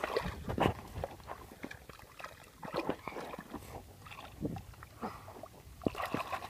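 Hands squelching and splashing in wet, sandy mud, digging through a shallow muddy puddle with irregular slaps and sloshes.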